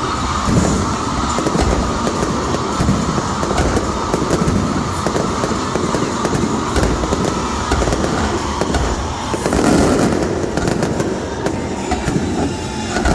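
Fireworks display going off, with a dense, continuous run of bursts and crackles.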